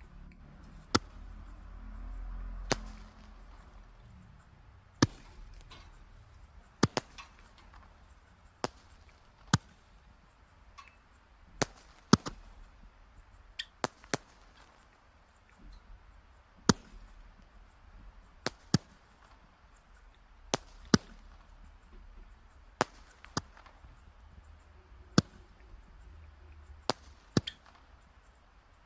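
Wood fire crackling: sharp, irregular pops and snaps of burning logs, roughly one every second or two, over a faint low hiss.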